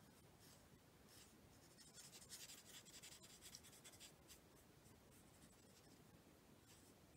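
Faint scratching and rubbing of a marker tip colouring on cardstock, a little louder between about two and four and a half seconds in.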